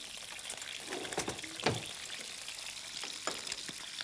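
Langouste pieces and small potatoes sizzling as they fry in a stainless steel pot, stirred and turned with two wooden spatulas, with a few knocks of wood against the pot.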